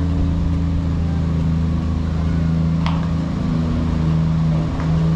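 Jeep engine pulling an open tram of passenger cars, running steadily at low speed, heard from a trailing car, with one short click about three seconds in.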